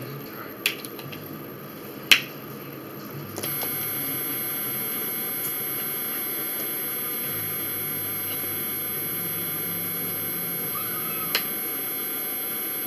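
A sharp click about two seconds in, then a steady electrical appliance hum with a thin high whine switches on a second later and keeps running evenly.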